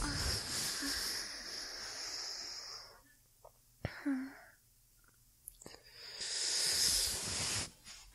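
Slow, sleepy human breathing close to the microphone: a long airy breath, a quiet pause broken by a few small mouth clicks and a soft throat sound, then another long breath near the end.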